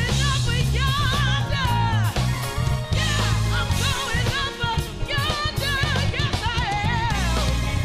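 A woman singing a gospel solo into a microphone, her voice wavering with heavy vibrato and sliding runs, over a live band of drums, bass and guitar.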